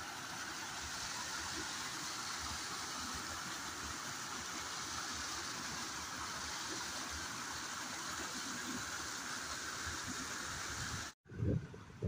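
Mountain stream water rushing and churning as it pours between boulders into a pool, a steady, even rush. About eleven seconds in it cuts off abruptly, and a few low thumps follow.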